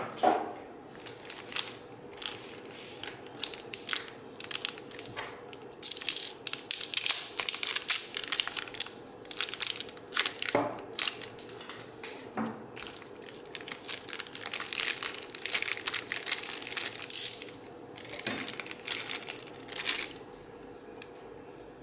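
Thin clear plastic packaging bags crinkling and crackling as they are handled and pulled open, in many quick runs, with a few knocks among them. The crinkling stops shortly before the end.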